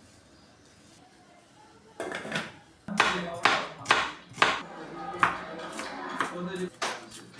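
Dishes, pots and utensils clattering, with several sharp knocks and clinks starting about two seconds in, after a short near-silent stretch.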